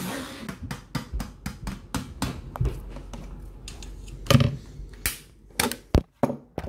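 Clicks and knocks of a stick blender and kitchen utensils being handled around a stainless steel saucepan: a quick run of light taps at first, then a few sparser, louder knocks in the second half.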